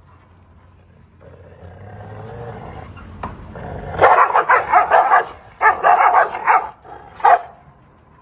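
Dogs growling at each other across a gate: a low growl builds from about a second in, then gives way to two runs of rapid, aggressive barking and a last single bark near the end.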